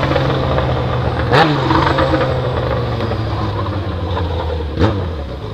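Yamaha XJ6's inline-four engine running through a straight-pipe stainless 4-into-1 exhaust with no muffler, holding a steady note, then dropping in pitch near the end as the throttle is rolled off.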